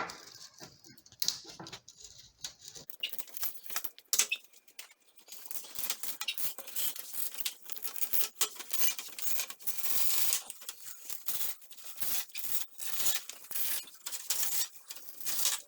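Old nylon window-screen mesh being dug and pulled out of the frame's groove with the corner of a 5-in-1 tool: irregular scraping, scratching and tearing, a stubborn screen that has been in there a while.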